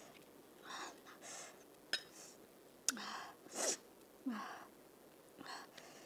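Several short sniffs and sharp hissing breaths, a reaction to very hot king-chili panipuri. Two sharp clicks of a metal spoon against a bowl come about two and three seconds in.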